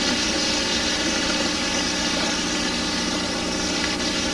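Pork tenderloin slices sizzling steadily in a stainless steel frying pan, under a constant hum, with a faint knock about four seconds in as a bowl of vegetables is brought to the pan.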